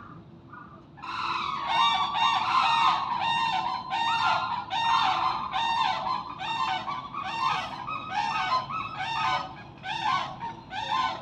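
Gibbon song: a long run of loud, evenly paced hooting calls, about two a second, each note swooping up and down in pitch, starting about a second in.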